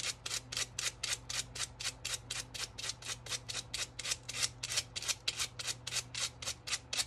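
80-grit sandpaper worked by hand in quick up-and-down strokes against the edge of a mason-jar sign, about five rasping strokes a second, sanding off the excess Mod Podged material.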